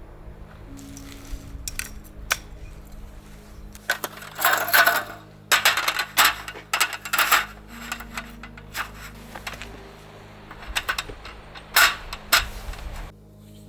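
Clinking and clattering of small hard objects being handled, in several bursts, over soft steady background music.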